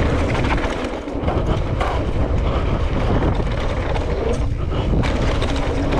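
Wind rushing over a helmet camera's microphone as a mountain bike rolls fast down dry dirt singletrack, with tyres crunching and the bike rattling and knocking over bumps.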